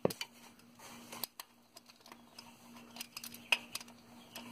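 Hand socket ratchet clicking in short, irregular runs while the 10 mm bolt holding the crankshaft position sensor is backed out. The clicks come thicker in the second half, with one sharper click about three and a half seconds in.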